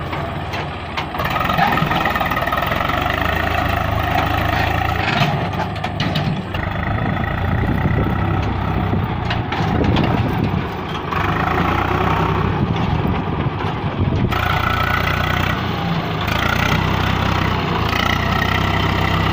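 Swaraj 744 FE tractor's three-cylinder diesel engine running under load, towing a heavily loaded two-wheeled trolley. The engine note stays steady but shifts up and down in pitch several times as the tractor pulls.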